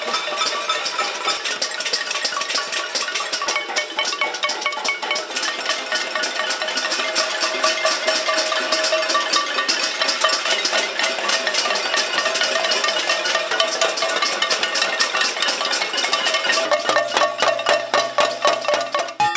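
A crowd banging cooking pots, pans and metal trays with ladles and spoons: a dense, continuous metallic clatter of many overlapping strikes, with the pots ringing.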